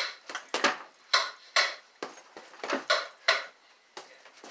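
Bare fists punching a hanging fabric hamper bag in a quick string of sharp slapping hits, about two a second, as in boxing combinations.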